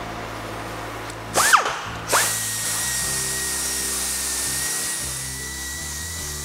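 Suhner LXB pneumatic right-angle grinder with a 60-grit diamond disc, water-fed, grinding cast lead crystal glass. It gives a brief burst of spin-up about a second and a half in, then starts again and runs at a steady high whine with a hiss.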